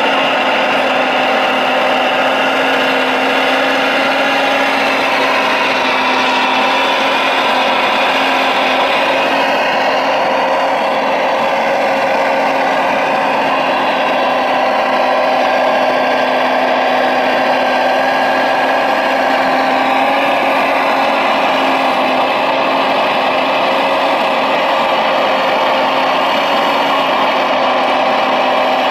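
Radio-controlled Liebherr 970 hydraulic excavator running with a steady whine as its timber grapple handles a log, the pitch shifting slightly now and then with the load.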